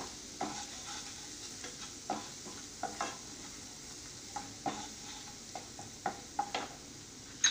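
Wooden spatula stirring ginger-garlic paste frying in butter in a non-stick kadhai: a steady light sizzle with irregular scrapes and taps of the spatula against the pan.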